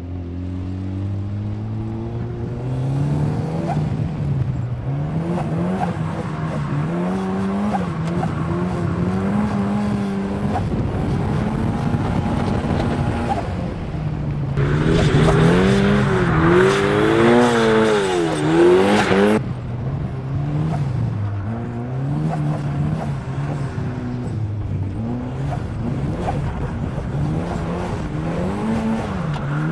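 Turbocharged 1.8-litre Mazda BP four-cylinder engine of an Exocet track car, heard from the open cockpit, revving up and down repeatedly as the car is driven hard. From about fifteen to nineteen seconds in it is louder, with the revs wavering quickly and tyres squealing.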